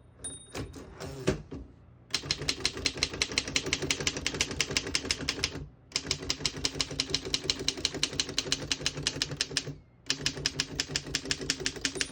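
1927 Underwood No.5 manual typewriter being typed on: a few scattered key strikes, then three long runs of rapid, evenly paced typebar strikes separated by brief pauses.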